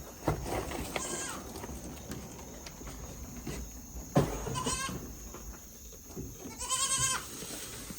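Goats bleating: three short, wavering bleats, the last, about seven seconds in, the longest and loudest. A sharp knock sounds about four seconds in.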